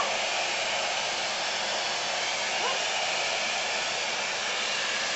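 Dyson upright vacuum cleaner running, a steady rushing noise of its motor and airflow.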